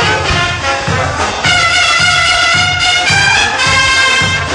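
Brass band playing a morenada: trumpets and trombones holding long chords over a steady bass drum beat, the chord changing about a second and a half in.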